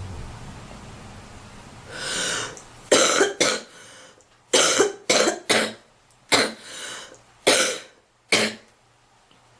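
A young woman's coughing fit: a breathy rush of air about two seconds in, then about nine sharp coughs in quick clusters with breaths between them. It is a smoker's cough, set off by smoking.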